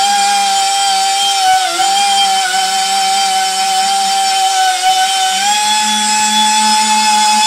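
Small handheld electric rotary tool running at a steady high whine while its bit cuts into the rubber tread of a truck tyre. The pitch sags briefly twice as the bit is pressed into the rubber under load, then rises a little about five and a half seconds in.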